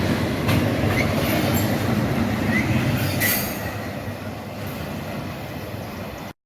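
Freight train cars rolling past on the rails, a steady rumble with occasional sharp clacks from the wheels. It fades somewhat after about three seconds and cuts off suddenly near the end.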